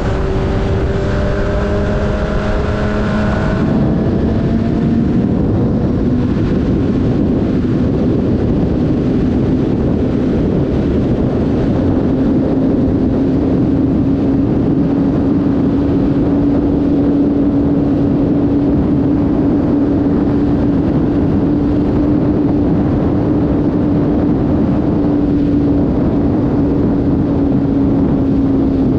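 Sport motorcycle's engine running at freeway speed, a steady drone whose pitch climbs slowly as the bike gathers speed, under a heavy rush of wind noise.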